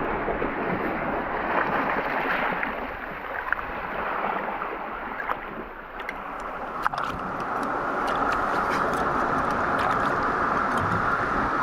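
Sea water sloshing and splashing close to the microphone, with scattered sharp clicks in the second half.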